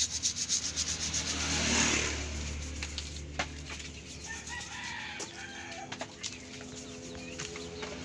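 Sponge scrubbing a wet washing-machine gear assembly in a basin of water, quick rhythmic rubbing strokes that stop about two seconds in. After that come a few scattered clicks and a rooster crowing in the background.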